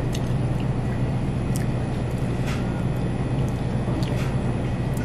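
Steady low hum with a few faint, short mouth clicks and smacks from someone chewing.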